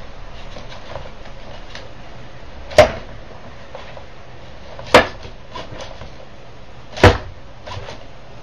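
A hammer swung by a NAO humanoid robot striking a wooden plank three times, about two seconds apart, each a sharp knock, with faint smaller clicks between.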